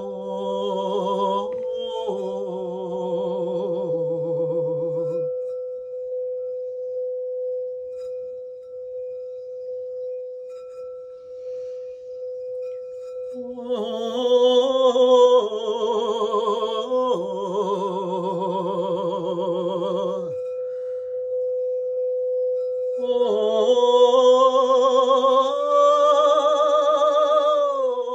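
A singing bowl held on one steady ringing tone throughout, with wordless singing in long, wavering notes over it in three phrases: at the start, again about halfway through, and near the end.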